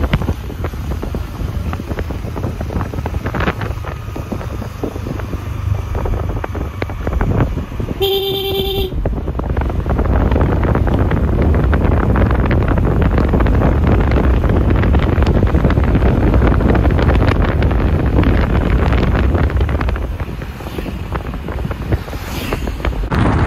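Wind buffeting the microphone over motorbike engine and road noise on a ride, growing louder about ten seconds in. A vehicle horn honks once, briefly, about eight seconds in.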